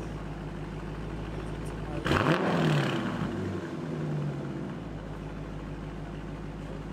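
2020 Dodge Challenger R/T's 5.7-litre HEMI V8 idling through its exhaust, with one short blip of the throttle about two seconds in that rises and falls back to idle.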